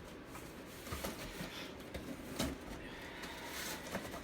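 A cardboard shipping box being opened and its contents handled: scattered rustling and crinkling with a few light knocks.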